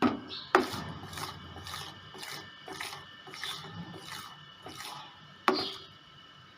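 A spatula scraping around a pan while stirring thickening caramel, about two strokes a second, with a sharp knock against the pan about half a second in and another near the end.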